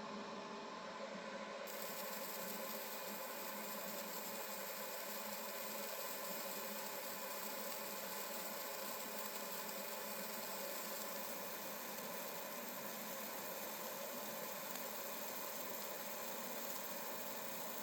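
A workshop power tool running steadily with an even hiss, the treble brightening about two seconds in.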